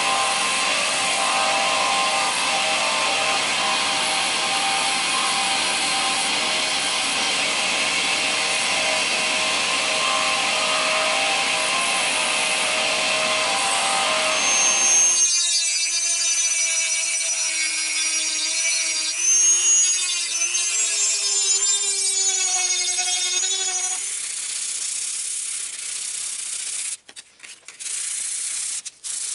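Disc sander running with a steady grinding noise as a spalted maple spoon's edge is tapered against it. About halfway through, the sound changes abruptly to a high whine that wavers in pitch, then to a rough rubbing hiss.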